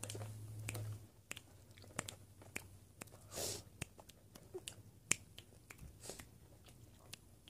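Faint, close-up chewing of chewy Hot Tamales cinnamon candy: soft wet mouth clicks and smacks, with a short hiss about three seconds in.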